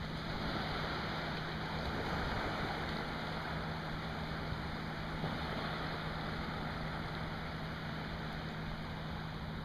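Small waves washing in at the water's edge, a steady even hiss, with a constant low hum underneath.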